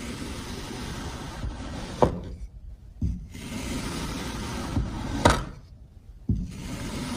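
Kinetic sand being worked with a tool: three long gritty scraping strokes, each starting and ending with a sharp click, with short quiet gaps between.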